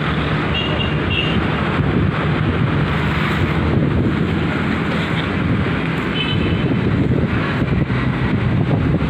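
Wind blowing across the microphone: a steady, dense rushing and rumbling noise with no pauses.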